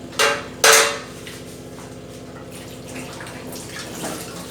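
Two sharp metal clinks with a brief ring, about half a second apart near the start, from a metal spoon knocking against a steel cooking pot while spices are added to the dal, followed by fainter clatter.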